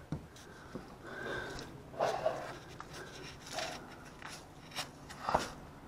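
Rustling, footsteps and a door being worked as a person goes out through a door, with short knocks scattered throughout and a sharp click about five seconds in.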